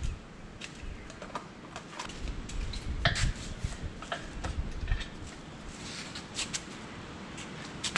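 Irregular metallic clinks, taps and knocks of hand tools and engine parts being handled during an engine teardown, with a cluster of heavier knocks about midway.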